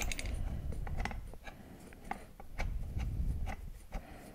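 Irregular light metallic clicks, about three a second, from a ratchet wrench and nuts being run down onto a wheel's bolts, with dull handling thumps twice.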